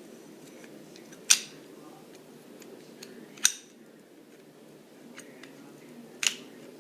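Centrifugal clutch parts clacking against each other as they are handled and fitted together: three sharp clacks about two seconds apart, with lighter ticks and clinks between them.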